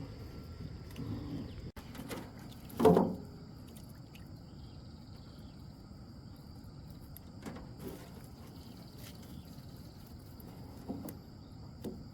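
Insects droning in a steady, high, even tone, with one sharp knock about three seconds in and a few fainter knocks later.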